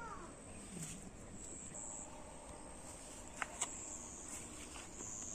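Steady high-pitched insect chirring, with the tail end of a kitten's meow at the start and two short sharp clicks about three and a half seconds in.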